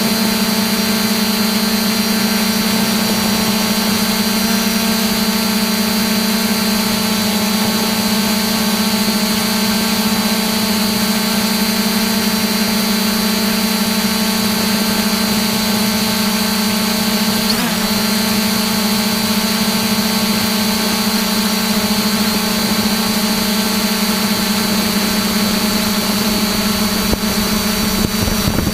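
A drone's electric motors and propellers whine steadily, heard from the camera mounted on the drone itself, with a brief wobble in pitch about two-thirds of the way through.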